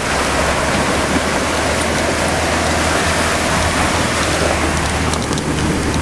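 Steady rushing noise of floodwater and rain, heard from inside a moving vehicle, with a low engine hum underneath.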